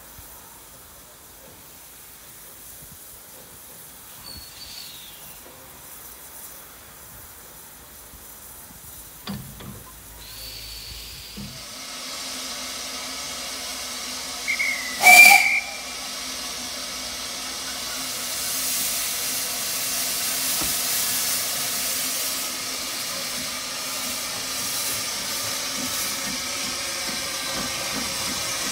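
Narrow-gauge steam tank locomotive: quiet at first, then steady hissing of steam from about twelve seconds in, a brief loud steam whistle blast about halfway through, and louder hissing of steam as it moves off with its train.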